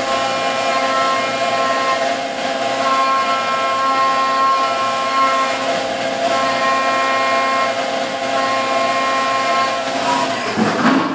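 Brother CNC machining centre milling 6061 aluminium with a 3-flute carbide end mill at high spindle speed under flood coolant: a steady high-pitched cutting whine over the hiss of coolant spray. Several of its tones cut in and out every few seconds as the tool moves through the cut. Near the end comes a brief, louder rushing noise.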